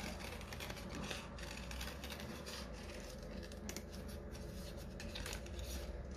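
Small scissors cutting through painted card in a series of short snips.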